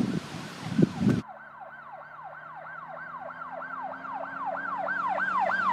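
Emergency-vehicle siren in a fast yelp, sweeping up and down about four times a second and growing steadily louder, with a low steady hum beneath it. It comes in abruptly about a second in, after a brief stretch of rustling and a few thumps.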